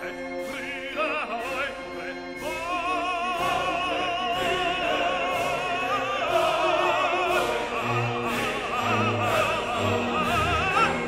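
Operatic singing with strong vibrato over orchestral music with a steady beat; deep low notes join about two-thirds of the way through.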